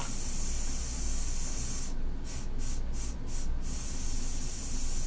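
A person hissing a long "sss", the /s/ speech sound presented as a listening cue in cochlear-implant sound-conditioning practice. It is held, then broken into about five short hisses a little after halfway, then held again until near the end.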